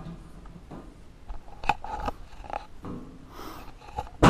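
Scattered light clicks and knocks from handling the bandsaw's sheet-metal wheel-cover door and its latch knob, and a loud knock with a ringing tail right at the end.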